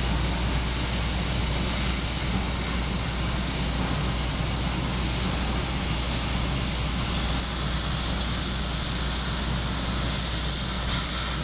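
Trumpf 2530 3000-watt CNC laser cutting stainless steel sheet: a steady hiss of assist gas jetting from the cutting head over a low machine hum.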